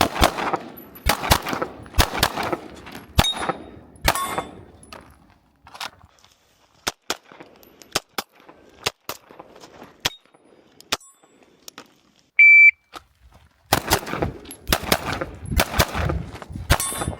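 Fusion Firearms XP Pro pistol firing strings of shots on a timed run at targets and steel: a handful of shots about a second apart, lighter scattered cracks, then a shot-timer beep about 12 seconds in followed by a fast string of shots.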